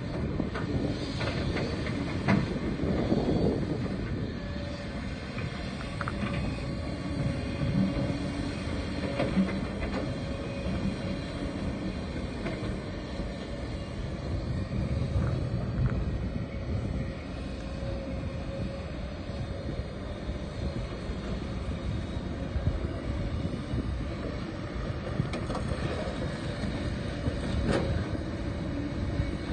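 Kobelco SK140 hydraulic excavator running under load while digging rock and swinging to a dump truck: a steady low drone of engine and hydraulics, with scattered knocks and clanks of rock against the steel bucket, and a sharp clank near the end.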